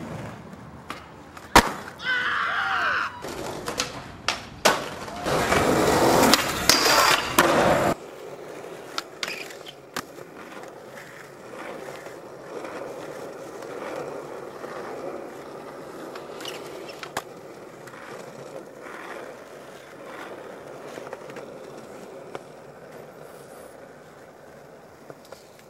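Skateboard wheels rolling over pavement, with sharp clacks of boards popping and landing. For the first several seconds the sound is loud and rough, then it turns into a quieter, steady wheel roll with occasional clicks.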